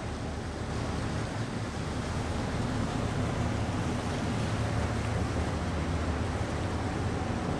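Low, steady rumble of a tug's diesel engines passing, growing slightly louder about two seconds in, over a steady hiss of wind and water.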